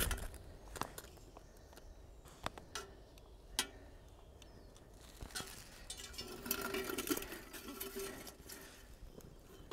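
Sharp clicks and scrapes from lighting tinder at a small titanium twig stove: a few separate strikes in the first four seconds, then a quicker run of scraping from about five to eight seconds in.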